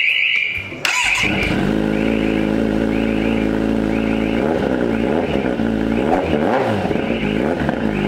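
Kawasaki Z900's inline-four engine running through an Austin Racing slip-on muffler held onto the link pipe by hand. It comes in suddenly about a second in, settles to a steady idle, then is blipped several times between about four and a half and seven seconds before settling again.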